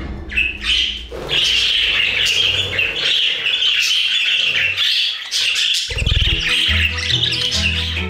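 A flock of budgerigars chirping and chattering continuously, over background music whose low notes come in about six seconds in.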